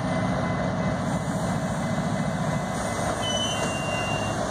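Two GE ES44AC diesel-electric locomotives running as they move slowly, pushing a cut of cars, a steady low engine rumble. The engine note eases back about two-thirds of the way through.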